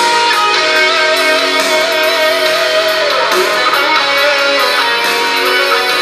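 A guitar-led song playing loud through a small portable Bluetooth speaker, the MTV Twister, in a volume and sound-quality test, with little deep bass.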